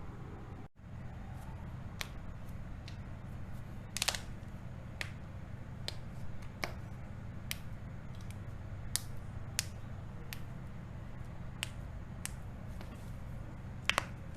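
Joints cracking under manual manipulation: a series of sharp single pops, roughly one a second, over a steady low hum.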